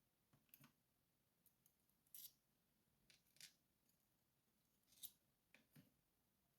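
Faint, irregular metallic clicks and clinks of Abloy Classic disc-detainer discs and spacers being taken off the lock core one by one and set down, some clicks coming in quick pairs.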